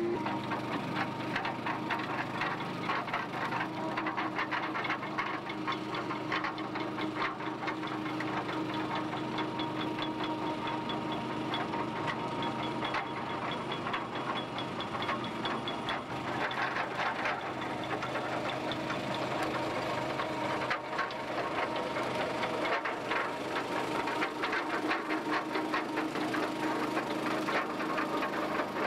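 A skiff's four-stroke outboard motors running steadily at low speed, with many irregular clicks and taps over the engine hum.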